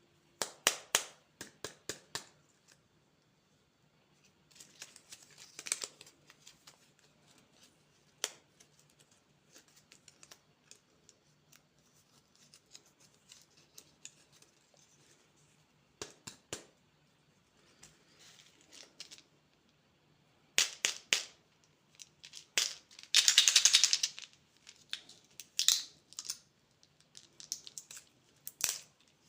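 Candy packaging being handled and opened: scattered sharp clicks and short crinkly rustles of plastic wrappers, with one longer, louder crinkling tear a little before the end.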